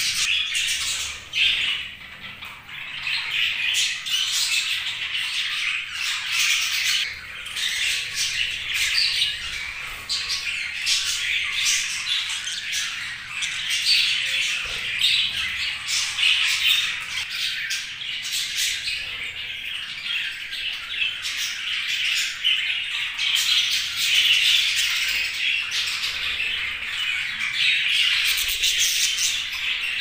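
A flock of budgerigars chattering, many calls and chirps overlapping without a break, briefly thinner about two seconds in.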